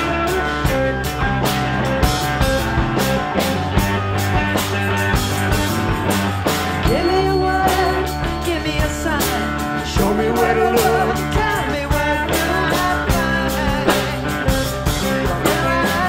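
Live rock band playing an instrumental passage on electric guitars, bass and drum kit, with a steady drum beat.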